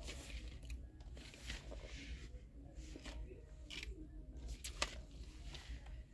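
Close handling noise: rustling with a few sharp clicks and crinkles, over a low steady room hum.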